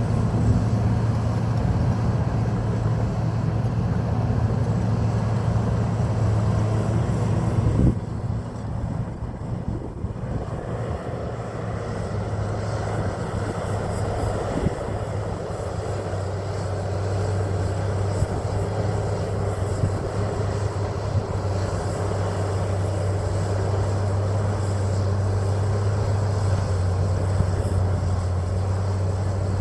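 John Deere 750J crawler dozer's diesel engine running steadily under load. About eight seconds in there is a knock, then the engine note drops and quietens before building back up over the next several seconds.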